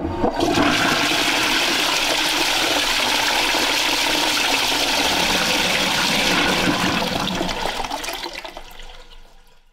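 Toilet flushing: a steady rush of water into the bowl that starts about half a second in and dies away over the last few seconds.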